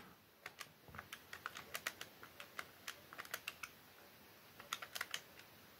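Keys of a Casio scientific calculator being pressed: a run of faint, irregular clicks, a pause of about a second, then a few more clicks near the end.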